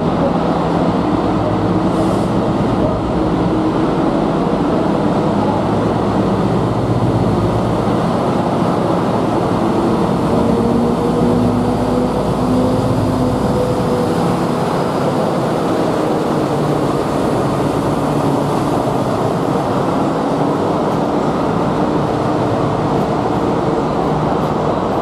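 Diesel freight locomotive in DB Cargo livery running under power as it hauls tank wagons past at low speed: a steady engine drone whose pitch drifts slightly, over the running noise of the wagons' wheels on the rails.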